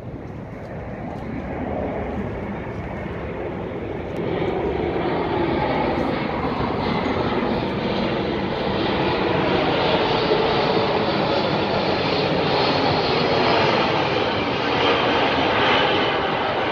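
Jet noise from a Boeing C-17 Globemaster III's four turbofan engines as it flies over. It builds over the first few seconds, then holds as a loud, steady rush.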